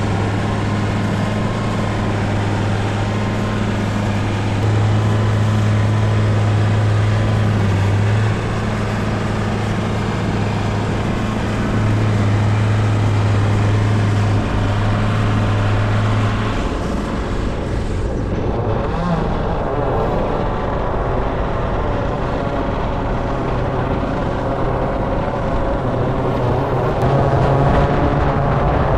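Onboard sound of a VTOL fixed-wing drone in flight: a steady propeller hum in cruise, changing about two-thirds of the way through to a rippling rotor sound as the lift rotors spin up for the descent, growing louder near the end.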